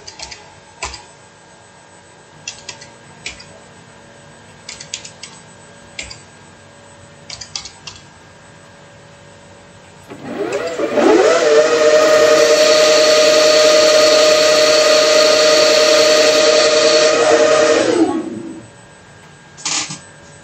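CNC lathe spindle spinning up with a rising whine about ten seconds in, running steadily for about six seconds while it takes a skim cut, then winding down. Before it, a series of light clicks as the cut's settings are keyed in.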